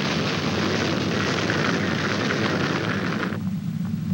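Tornado wind noise: a loud, steady rushing noise that cuts off suddenly a little over three seconds in, leaving a low rumble.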